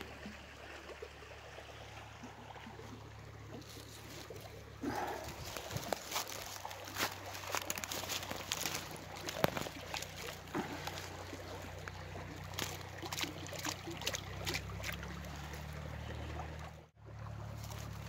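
Shallow stream water sloshing and splashing as freshly dug wild shallot plants are swished and rinsed in it by hand, with many small splashes from about five seconds in, over the steady trickle of the stream.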